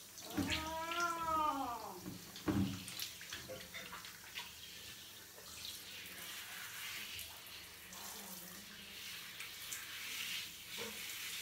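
A cat gives one long meow that rises then falls, in the first two seconds. After that, a handheld shower sprays water onto the wet cat's fur with a steady hiss.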